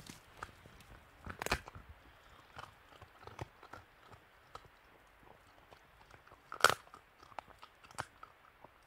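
Tasmanian devil's jaws crunching on bone while it feeds: irregular sharp cracks and crunches, the loudest near seven seconds in and another strong one about a second and a half in.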